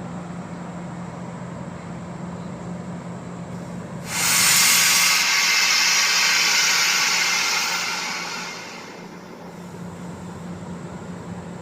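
A sudden loud hiss of compressed air venting from the MARC train's air brakes starts about four seconds in and dies away after about five seconds; the railfan takes it for the brakes being released. Under it, the idling MP36 diesel locomotive gives a steady low hum.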